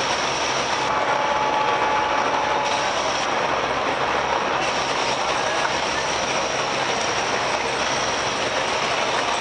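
Steady running noise of a river passenger launch's engine under way at close range: an even mechanical rumble and rattle with no single event standing out. A faint steady whistle-like tone sounds for about two seconds, starting a second in.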